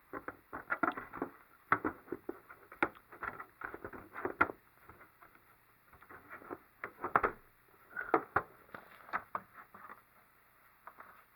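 Small plastic kit parts and their packaging being handled: irregular clicks and rustles, busiest in the first half and again near the end.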